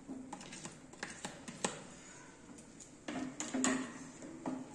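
Sliced button mushrooms tipped from a bowl into a nonstick pan of melted butter and pushed around with a wooden spatula: a series of light clicks and taps against the pan, with a quick cluster of taps about three seconds in.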